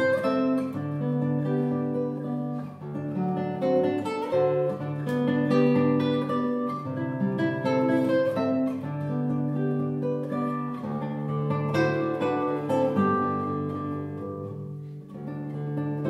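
Solo nylon-string classical guitar, fingerpicked: a melody line over sustained bass notes, with a brief softer stretch near the end.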